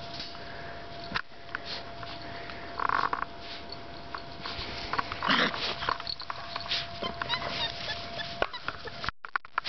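Young puppies in a pen moving about in grass, giving two short yips, the first about three seconds in and a louder one about five seconds in, over steady rustling and small clicks.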